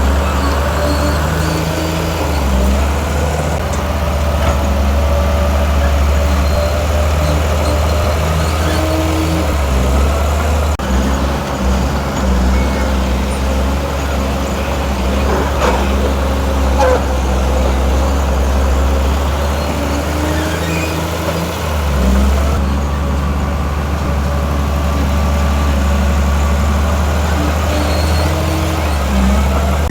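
Heavy diesel engine of earthmoving machinery running under load, its engine speed rising and falling a few times. A few brief knocks about halfway through.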